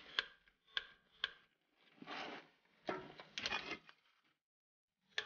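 Ratchet head of a torque wrench clicking as 14 mm bolts are tightened toward 50 ft-lb: a few sharp single clicks in the first second and a half and again near the end, with longer stretches of ratcheting in between.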